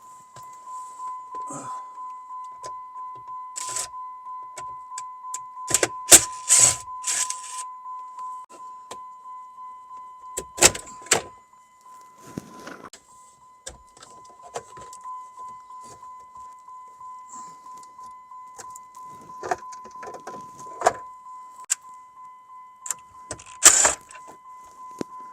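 A steady high electronic beep pulsing evenly and without a break, with loud clicks and knocks of hands and tools working on the dash, the heaviest about six to seven seconds in, again near eleven seconds and just before the end.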